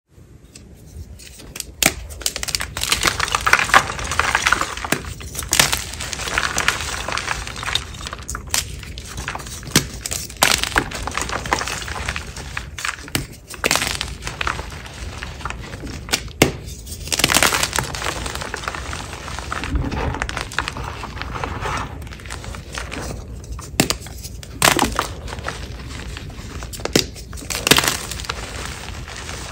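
Soft blocks of gym chalk crushed by hand in a bowl: a steady crumbly crunching, broken by many sharp cracks as pieces snap apart, starting about a second in.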